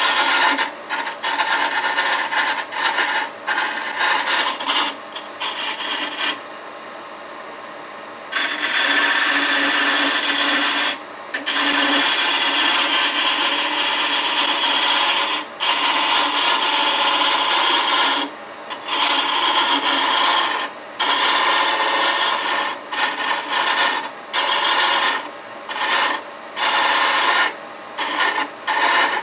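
Turning tool cutting a spinning walnut handle on a wood lathe, a rasping scrape that comes in short passes, then longer strokes of a few seconds each with brief pauses between.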